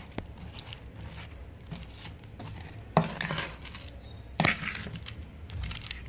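Kitchen dish and utensil handling: light clicks and rustles, with two louder short scraping knocks about three and four and a half seconds in.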